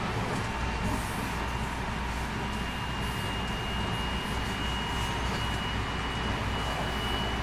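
Running sound inside the motor car of a 223 series 2000 electric multiple unit: a steady low rumble of wheels on rail, with a thin high whine from the Hitachi IGBT inverter drive that steps up slightly in pitch a few seconds in.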